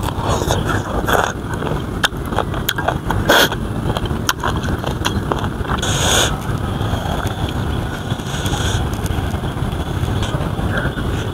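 Close-up chewing of crunchy young green mango: irregular crisp crunches and crackles over a steady low rumble.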